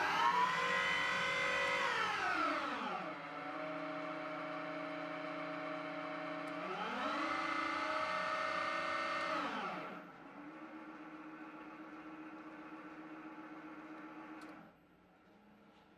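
Schaublin 125-CNC lathe spindle on its VFD-driven motor running up with a rising electric whine. The pitch then steps down, rises again and falls again as the commanded spindle speed is changed, and the whine cuts off sharply near the end.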